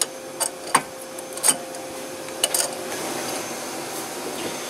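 Hand tools on a harmonic balancer puller fitted to a crankshaft pulley: about five sharp metallic clicks and taps, irregularly spaced, over a faint steady tone that stops about three seconds in.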